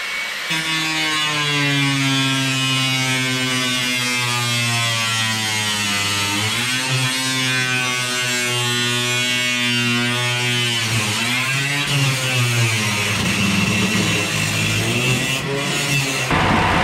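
Handheld power tool cutting through a school bus's sheet-metal side wall: a steady motor whine whose pitch sags and recovers as it bites, about six and eleven seconds in. Near the end it turns rougher and noisier.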